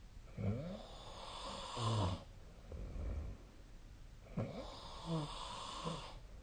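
A sleeping person snoring: two snores, each lasting about two seconds, about four seconds apart, with a quieter breath between them.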